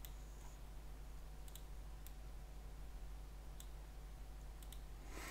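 Computer mouse and keyboard clicks while working at a computer: a handful of short sharp clicks, some in quick pairs, over a steady low electrical hum.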